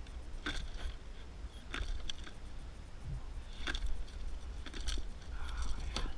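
Handling noise from a landing net and fishing lure around a caught tiger muskie: about half a dozen sharp clicks and rattles at irregular intervals. A steady low wind rumble on the microphone runs underneath.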